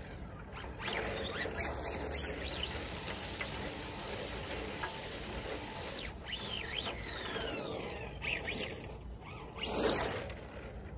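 Delta Villain IFS radio-controlled car's electric motor and gears whining as it drives on asphalt. A high whine holds steady for a few seconds, falls away in several sweeps as the car slows, then rises to its loudest as the car passes close by near the end.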